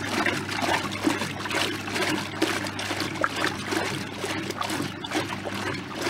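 Water churning and sloshing in the tub of a 1960s Hotpoint Countess top-loading washing machine as its paddle agitator swings backwards and forwards, over a steady low hum from the electric motor.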